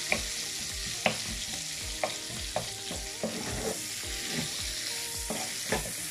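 Sliced onion and pepper sizzling in oil and lamb-sausage drippings in a frying pan as they are stirred with a wooden spoon. The spoon knocks sharply against the pan several times. The onions are softening toward caramelizing.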